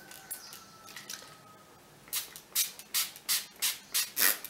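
Pump-mist bottle of Make Up For Ever setting spray being sprayed onto the face in a quick run of short hissing sprays, about three a second, starting about two seconds in.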